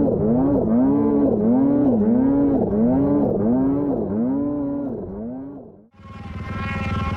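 Snowmobile engine rising and falling in pitch about twice a second, fading away; then, about six seconds in, a steady engine drone starts.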